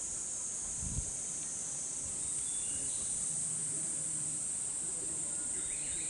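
Chorus of cicadas, a steady high-pitched drone that does not let up. A brief low thump about a second in.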